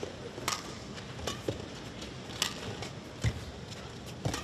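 Badminton rally: sharp cracks of rackets striking the shuttlecock, about a second apart, with the thuds of players' footwork on the court.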